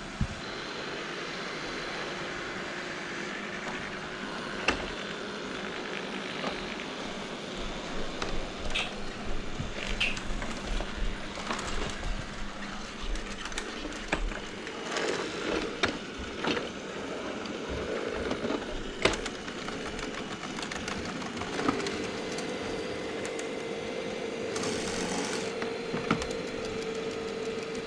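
Roborock robot vacuum running: its suction fan and brushes making a steady mechanical whir, with a few sharp knocks as it bumps or moves over things.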